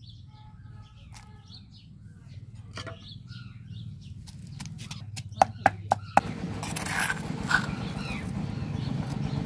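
Stone pestle pounding onion, garlic and ginger in a stone mortar: three sharp knocks a little past halfway, then a metal spoon scraping the crushed paste against the stone.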